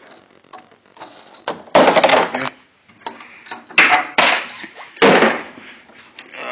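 Wooden 2x4 fold-down tabletop being pivoted down on its bolts: three loud bursts of wood knocking and scraping, about two, four and five seconds in, with quieter clattering between.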